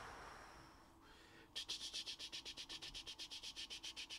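Stacked trading cards sliding against each other as they are flipped through. Then, about a second and a half in, a fast, even rasping rattle of about nine strokes a second starts and keeps going.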